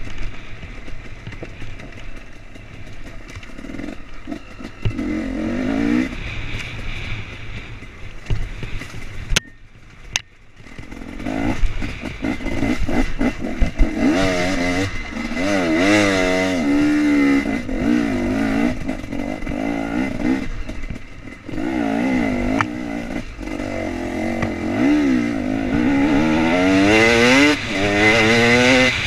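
2016 KTM 250 EXC two-stroke enduro engine revving up and down as the bike is ridden along a dirt trail, its pitch rising and falling with the throttle. About ten seconds in, the engine drops away briefly before the revs climb again.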